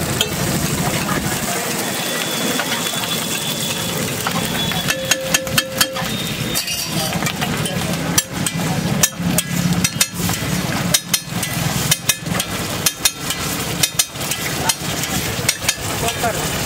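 Metal spatula scraping and clinking against a large flat iron griddle as a heap of egg fried rice is stirred and turned; from about five seconds in the clinks come sharp and irregular, several a second. A steady low hum runs underneath.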